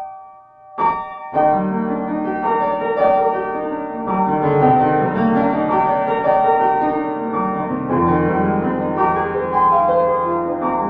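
Piano-like keyboard music: one chord struck just under a second in, then chords played continuously from about a second and a half on.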